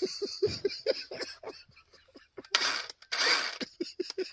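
Men laughing: a run of short, rhythmic laugh pulses that trails off in the first second, then two breathy bursts of laughter later on.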